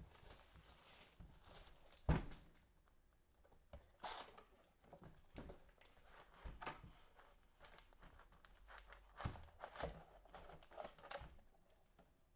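Cellophane wrapper of a trading-card cello pack crinkling and tearing as it is opened, with cards being handled. A sharp knock about two seconds in is the loudest sound.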